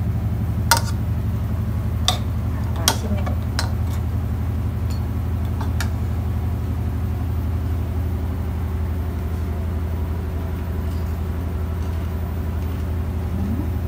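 Metal spoons clinking against a bowl a few times in the first six seconds as a salad is tossed, the later clinks fainter, over a loud steady low machine hum.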